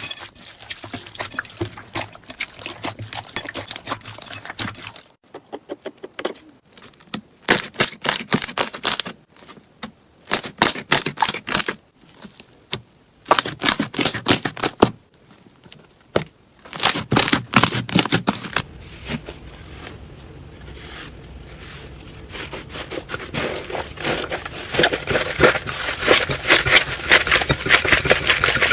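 Slime being worked, crackling and popping in fast runs of sharp clicks, in short bursts with brief pauses between them. The crackling grows denser near the end.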